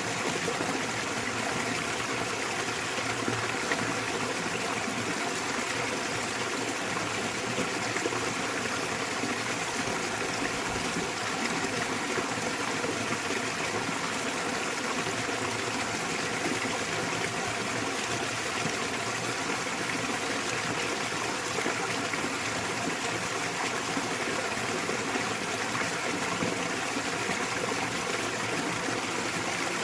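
Small waterfall in a mountain stream: water splashing and running steadily.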